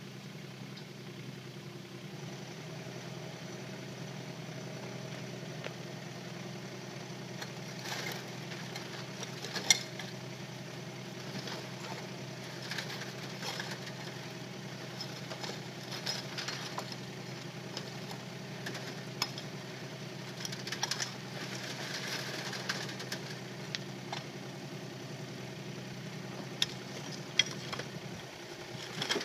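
Kubota K008-3 micro excavator's small three-cylinder diesel running steadily. From about eight seconds in, intermittent clatter and knocks of stones are heard as stony soil is screened, with one sharp knock about ten seconds in.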